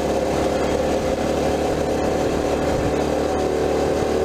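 Mini bike engine running at a steady, even pitch while the bike cruises along a dirt road.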